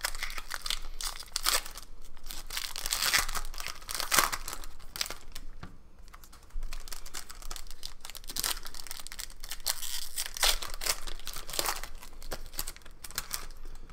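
Foil wrapper of a Panini Prizm basketball card pack crinkling as it is torn open and handled. A dense crackling runs on, with a brief lull about six seconds in.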